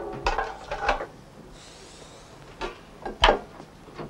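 Old metal pots and tins clinking and knocking as they are handled and set down: a few separate knocks, the loudest about three seconds in, with a brief rustle near the middle.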